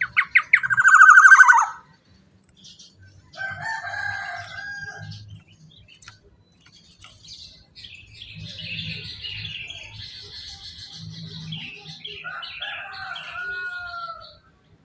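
Black-naped oriole calling: a loud, harsh, falling call at the start, then fluted whistled phrases about four seconds in and again near the end, with higher chattering notes between.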